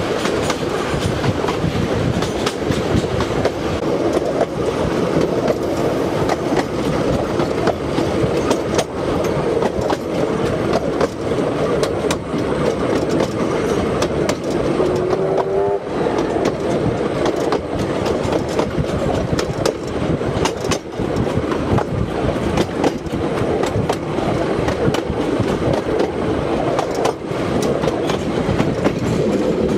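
Kingston Flyer steam-hauled heritage train running along the line, heard from on board: a steady rumble of the carriages with the wheels clattering on the track. There is a brief rising squeal about halfway through.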